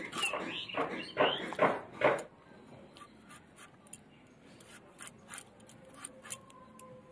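Several loud animal cries with bending pitch in the first two seconds. After them come faint, scattered crunches and clicks of young green jackfruit being sliced on a boti blade.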